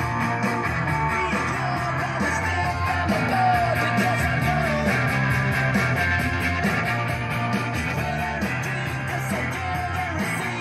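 Guitar-driven rock music with a steady beat, played back through a pair of KLH 403A indoor/outdoor speakers (4-inch polypropylene mid-woofer with a small tweeter) during a listening test.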